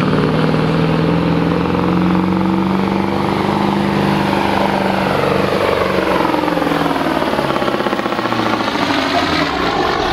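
Mack semi truck's diesel engine running hard under load, pulling a weight-transfer sled. Its note holds steady at first, dips around eight seconds in and climbs again near the end.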